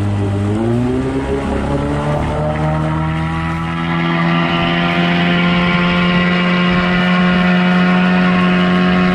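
Small boat's outboard motor running under way, speeding up about a second in and then holding a steady, higher pitch.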